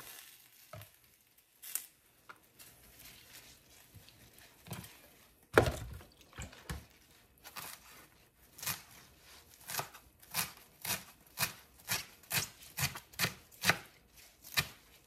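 Kitchen knife chopping sweet potato leaves. There is a single heavy thunk about five and a half seconds in, then from about eight seconds on a steady run of cuts at roughly two a second.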